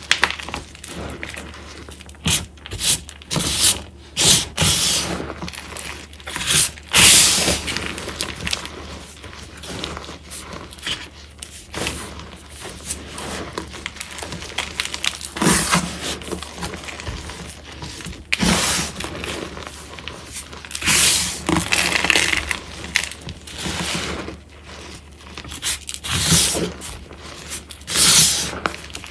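Reformed gym chalk blocks crunching and crumbling in irregular crunches, some in quick clusters, with quieter gaps between. The chalk is plain, with nothing mixed in, and set hard and crunchy.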